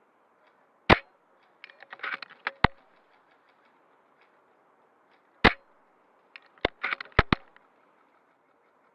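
VSR-10 spring-powered airsoft sniper rifle firing two sharp shots about four and a half seconds apart. After each shot comes a quick run of clicks and clacks as the bolt is cycled.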